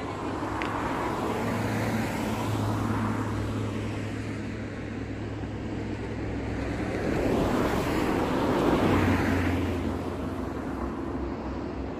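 Road traffic passing close by: one vehicle swells up and fades about two to three seconds in, and a second goes by about seven to nine seconds in, over a steady low hum.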